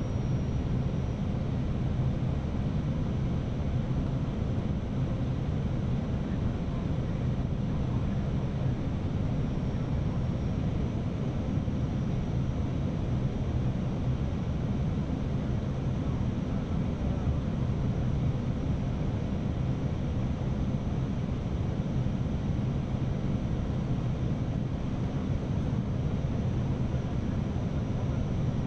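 Steady rush of airflow and engine noise inside an Airbus A319's flight deck on final approach, with a faint high whine held throughout.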